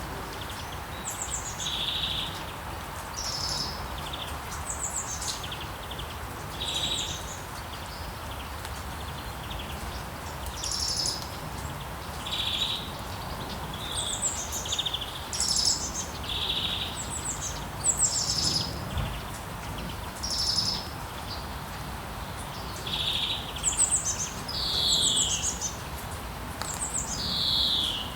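Songbirds singing: short chirping phrases, several sliding down in pitch, come every second or two over a steady hiss of rain and town background.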